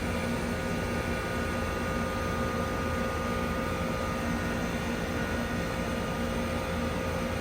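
1999 Trane XE1000 heat pump running in cooling mode: a steady rush of air from the condenser fan with an even hum from the compressor, unchanging throughout.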